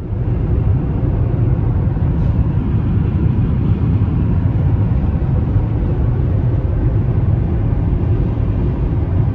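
Steady rumble of road and tyre noise inside a car cabin at highway speed. The rumble is heaviest in the low range and holds even throughout.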